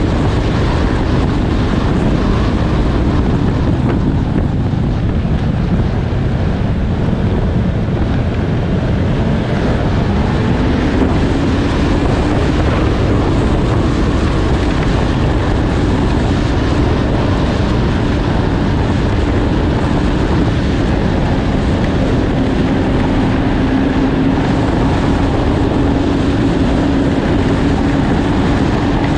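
Snowmobile engine and track running steadily at speed, with wind noise on the microphone. The engine pitch rises a little about ten seconds in and then holds.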